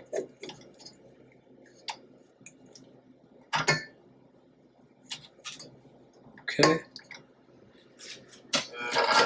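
Spatula and fingers scraping butter off the wire whisk and the sides of a stainless-steel stand-mixer bowl, with light clinks and scrapes and two louder knocks against the bowl. The stand mixer's motor starts up at the very end.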